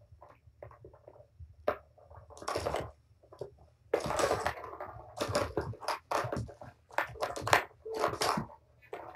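Kittens scrambling and wrestling around a plastic ball-track toy on a blanket-covered floor: irregular scuffles, knocks and rustles, sparse at first and much busier from about four seconds in.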